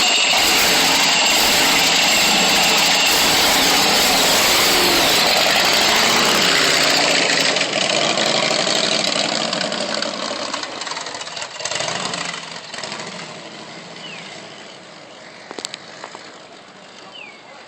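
Small motor scooter engine running hard, loud for the first half, then fading steadily as the scooter moves away.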